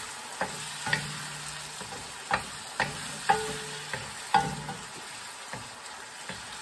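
Wooden spatula stirring diced tomato, onion and lemongrass in a sizzling coated wok, with sharp knocks and scrapes of the spatula against the pan roughly every half second. The knocks stop about two thirds of the way through, leaving a faint sizzle.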